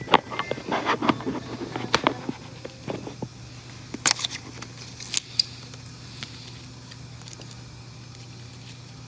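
Handling noise on the recording phone: a dense run of rubbing clicks and knocks, then a few sharper clicks about four to five seconds in, over a steady low hum.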